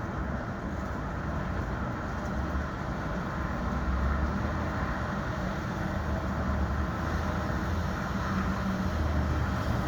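City street traffic: a steady low rumble of passing vehicles over a background hiss, swelling about four seconds in and again near the end.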